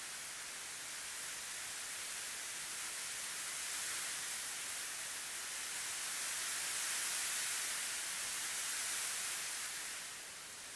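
A steady, high hiss that swells louder through the middle and eases off near the end.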